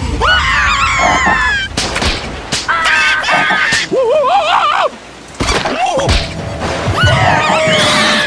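Squeaky, warbling cartoon-creature voices chattering and yelping in swooping pitches, with a few sharp comic hits in between.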